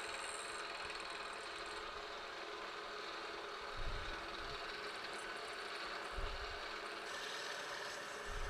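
Milling machine spindle running steadily with a 3/8 inch end mill cutting a hole. There are three short low thumps: the first about four seconds in, the second about six seconds in, and the last near the end.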